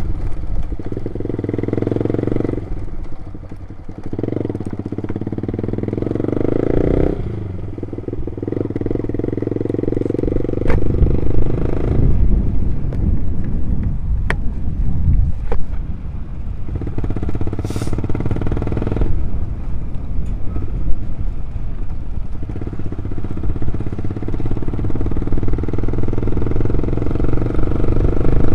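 Loud motorcycle engine running on the move, its note rising and falling several times as the throttle is opened and closed, with a few short clicks.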